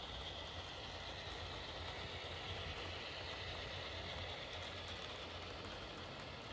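HO-scale model diesel locomotives and boxcars rolling along the track: a steady whir of the locomotive motors and the wheels on the rails, a little louder as the locomotives pass close by.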